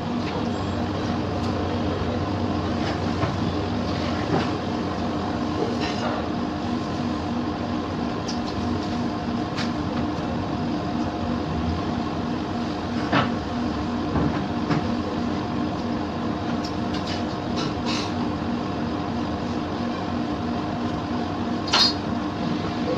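Steady machine hum with several held tones, typical of kitchen equipment running, with a few light clicks and clinks of utensils scattered through it.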